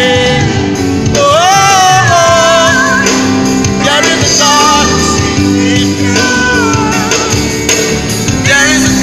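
Live gospel band playing with singing: voices sliding up into held, wavering notes over keyboard and band accompaniment.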